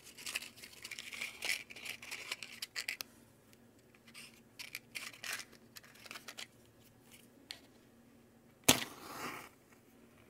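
Black tissue paper rustling and crinkling for the first few seconds, then a few small clicks and rustles as a matchbox is handled. Just before the end a match is struck on the box with a sharp scratch and flares with a short hiss.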